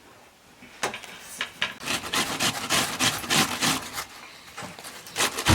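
Rough rasping strokes of something rubbed or scraped back and forth, a few scattered at first, then settling into a fast even rhythm of about four strokes a second from about two seconds in.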